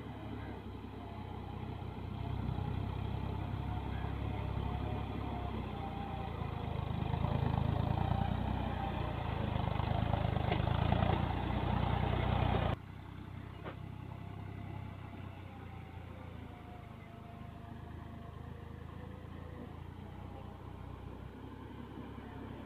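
Farm tractor's diesel engine running as it hauls a loaded earth trolley along a dirt track, growing louder as it comes closer. About halfway through, the sound stops abruptly and a fainter, steady engine sound takes over.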